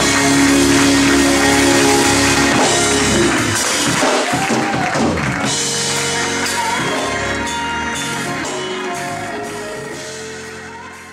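Live gospel music ending: a held chord from voices and band, with a singer's runs a few seconds in, then fading out steadily toward the end.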